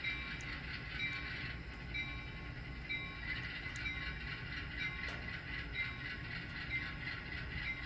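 HO scale Atlas Gold Series ALCO RS3 model diesel locomotive running slowly. Its sound decoder plays a steady low diesel engine rumble, mixed with the whir of the model's motor and gears and its wheels on the rails.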